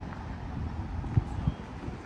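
City street ambience: a steady low traffic rumble with wind buffeting the microphone, and two short low thumps a little after a second in.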